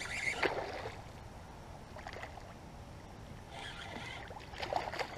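Hooked largemouth bass splashing at the pond's surface as it is reeled in near the bank: short bursts of splashing at the start, again about three and a half seconds in, and near the end.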